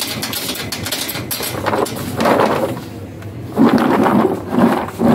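Hand-lever French fry cutter clacking as potatoes are pressed through its blade grid. Then a plastic tub of freshly cut raw potato chips is shaken, making three or four loud rustling swishes about two seconds in and near the end.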